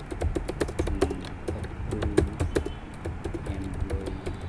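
Typing on a computer keyboard: quick, irregular key clicks, several a second, as a sentence is entered into a form field.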